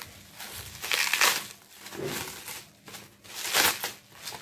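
Plastic bubble wrap crinkling as it is unwrapped by hand, in several loud rustles, the strongest about a second in and again near the end.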